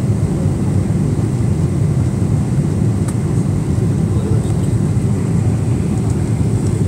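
Cabin noise of a Boeing 777 climbing just after takeoff, heard from a window seat over the wing: the engines and airflow make a steady, deep noise that holds even throughout.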